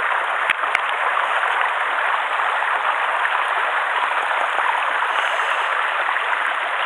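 Mountain stream flowing steadily, an even rush of water, with a couple of light clicks in the first second.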